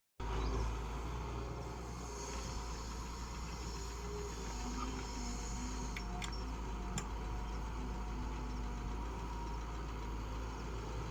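Doosan DX140W wheeled excavator's diesel engine running steadily as a low, even rumble, with a couple of faint clicks about six and seven seconds in.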